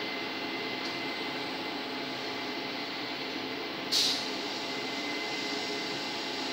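Steady machine-shop noise with a faint, steady high whine, and one sudden sharp click about four seconds in.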